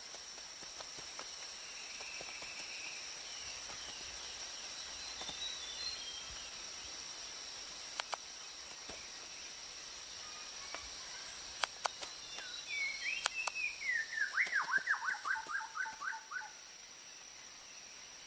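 Rainforest ambience with a steady high insect drone and scattered bird calls. About two-thirds of the way in, a bird gives a quick run of falling notes, about four a second, ending a few seconds before the end. Several sharp clicks are heard.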